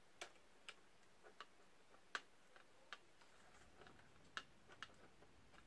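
Faint, irregular small clicks and taps, about ten in all, of plastic drone parts and a cable connector being handled and plugged in on a DJI Phantom 3 Pro's gimbal.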